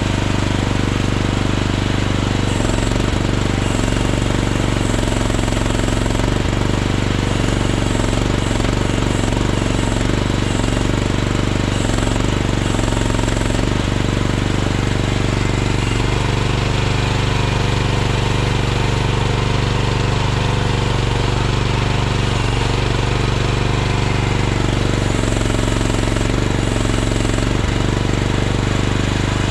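Chinese mini excavator's small engine running steadily with a rattly note, its pitch shifting several times as the hydraulics are worked.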